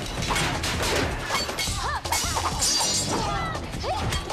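Film fight-scene soundtrack: a rapid run of hits and crashes with glass shattering about two and a half seconds in, over action music.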